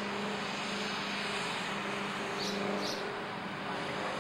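Steady outdoor background noise with a low hum that stops about two-thirds of the way through, and two short high chirps a little past the middle.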